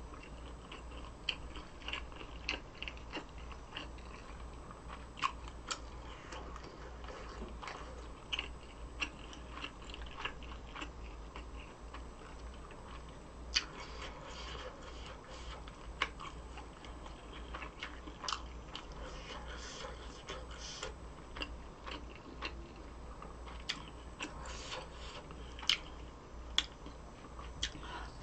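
Close-miked eating sounds: chewing and biting on chewy food, with irregular wet mouth clicks and a few sharper, louder smacks, over a steady low hum.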